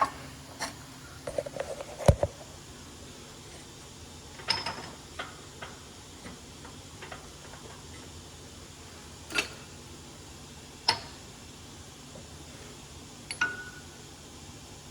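Scattered metal clinks and knocks, about six in all, the loudest about two seconds in, a couple with a short ring after: steel tools and parts being handled and set in place around a wheel hub on a press.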